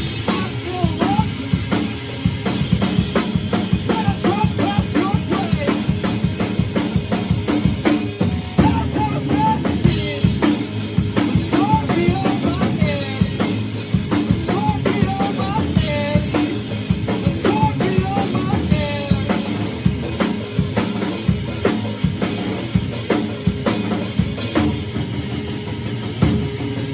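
Rock music with a full drum kit playing a steady beat: kick drum, snare and rimshots, with pitched instruments over it.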